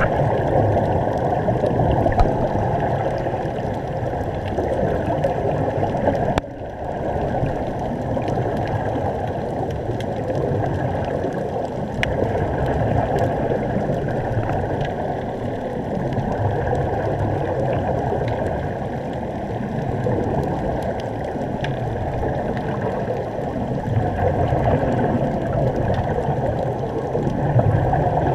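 Steady, muffled rushing and bubbling of air spilling from an air-fed sea-walker diving helmet, heard underwater through a GoPro's housing, with a few faint clicks.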